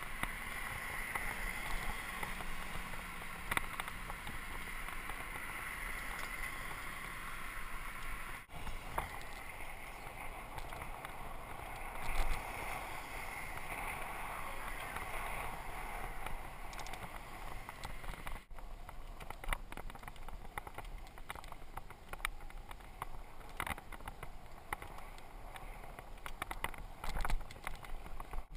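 Steady rolling and wind noise of a Mongoose mountain bike being ridden on paved city streets, heard through a GoPro, with many small rattles and clicks from the bike. The noise swells briefly about twelve seconds in and again near the end.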